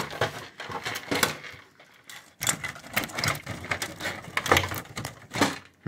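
Plastic parts of a Brother DCP-35C inkjet printer being pried and pulled apart by hand: a run of irregular clicks, creaks and cracks, with a short lull about two seconds in.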